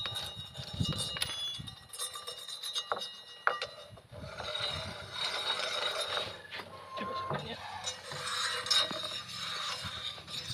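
Hand-work on a motorcycle's front disc brake rotor: scattered small metal clicks and knocks, then several seconds of uneven scraping and rubbing as metal grit stuck to the disc is worked off.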